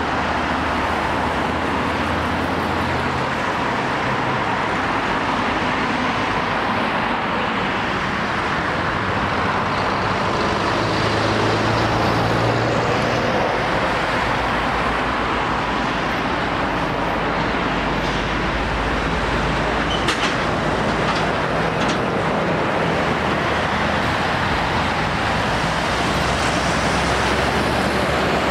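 Steady road traffic: cars and lorries passing close by, with engine and tyre noise. The low note of a heavy lorry's diesel engine stands out about halfway through.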